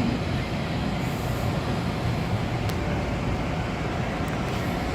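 Steady low rumble of train noise at a railway station platform, with no distinct events.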